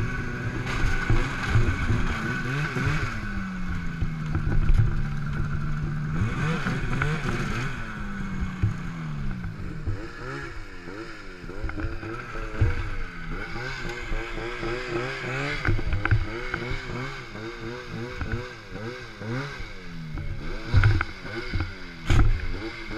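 Snowmobile engine running at low, varying revs while the sled is driven slowly up onto a trailer, its pitch rising and falling. A few sharp knocks come near the end.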